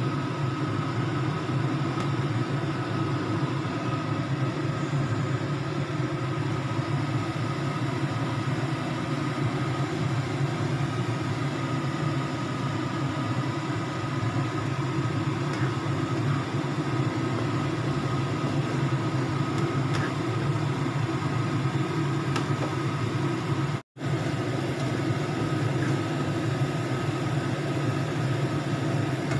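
Tomato sambal sizzling and bubbling in a frying pan as it is stir-fried, over a steady low hum, with a split-second break near the end.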